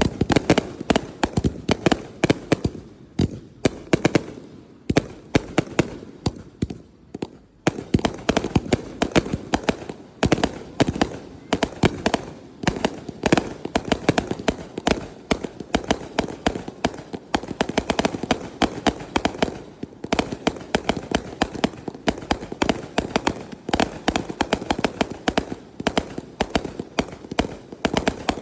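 Fireworks going off: many sharp bangs and crackles in quick succession. They thin out for a few seconds near the start, then come thick again.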